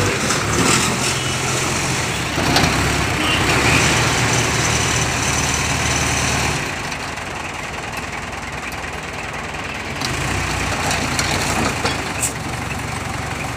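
Mobile crane's diesel engine running steadily close by under a broad hiss. Its low hum drops away about six and a half seconds in and comes back more faintly near ten seconds.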